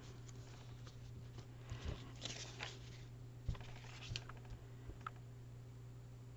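Faint handling of paper pieces on a craft table: a few soft rustles and light taps, scattered through the middle, over a steady low hum.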